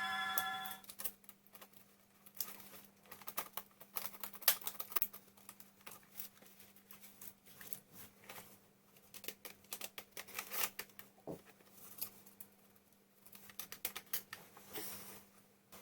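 Irregular small clicks and taps of a Dell Inspiron N5110 laptop's plastic and metal parts being handled while it is taken apart or put back together. A faint steady hum runs underneath.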